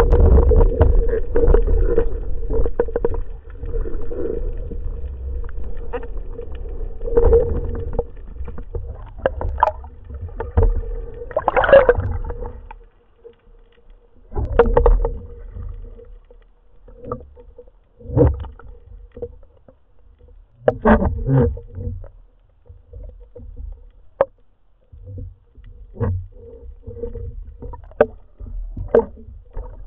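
Underwater sound through a speargun-mounted camera's housing: a steady rush of water noise for about the first twelve seconds, then scattered knocks, bumps and short splashy bursts as the gun is handled and the diver moves up toward the surface.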